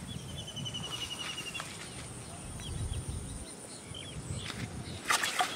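Open-field rural ambience: small birds chirping, one giving a rapid trill of short, slightly falling notes for about a second and a half near the start, over a low rumble of wind. A sudden, louder noisy burst comes near the end.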